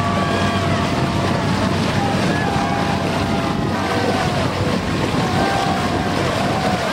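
Steady wind noise on the microphone over the river, with scattered distant shouts from spectators on the bank.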